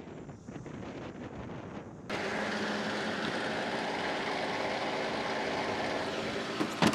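X-raid Mini rally car driving in with wind buffeting the microphone. About two seconds in, this gives way abruptly to the car's engine running steadily at idle. A sharp knock comes near the end.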